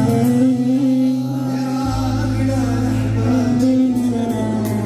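A man singing an Arabic mawwal with live band accompaniment: long, ornamented held notes that waver in pitch over a steady low bass note, which drops lower about two seconds in.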